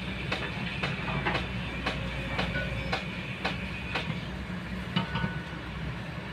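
Excavator's diesel engine running with a steady low drone, under sharp clacks repeating about twice a second that die out about four or five seconds in.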